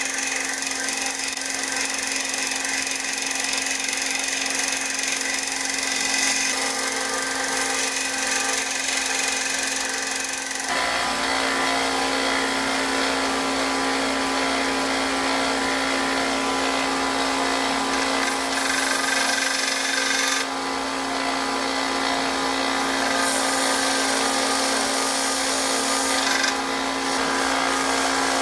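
1x30 belt sander running steadily while a quarter-inch high-speed steel lathe tool bit is ground against the belt, over a constant motor hum, with a shop vacuum running alongside. The grinding noise gets fuller and louder about eleven seconds in, then shifts again about twenty seconds in.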